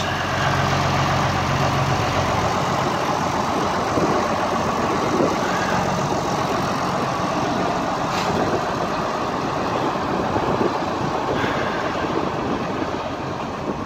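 International Harvester 4386 articulated four-wheel-drive tractor's diesel engine idling steadily, running smoothly just after starting.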